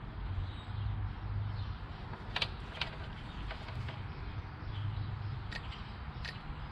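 New camshaft timing (VVT) solenoid for a GM 2.4L Ecotec engine clicking as it is energised from a car battery through jumper cables, a few sharp irregular clicks over a low background hum. The clicking shows the solenoid is working.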